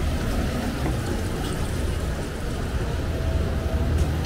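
City street ambience: a steady low rumble with a few faint scattered clicks.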